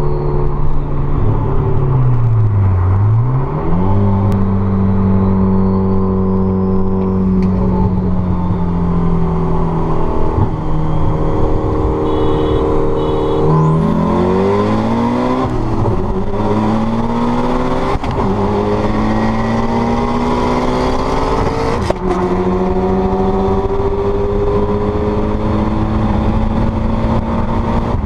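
Tuned Mitsubishi Lancer Evolution X's turbocharged four-cylinder at full throttle, heard from inside the cabin on a freeway pull. It climbs steadily in pitch through the gears, and the pitch drops and rises again at several gear changes, with tyre and wind noise underneath.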